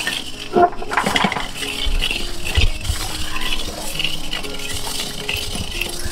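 A metal ladle stirring and scraping paddy rice grains around a blackened wok over a wood fire. The grains rustle and the metal clinks irregularly, with one sharp clink just under a second in. The paddy is being dry-roasted.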